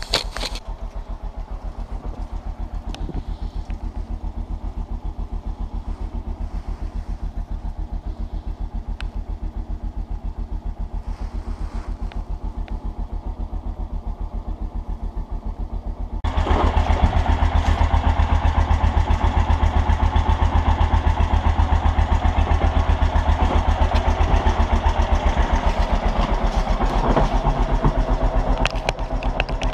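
ATV engine idling with a steady, even pulse. About halfway through it turns suddenly louder and fuller, and it holds there to the end.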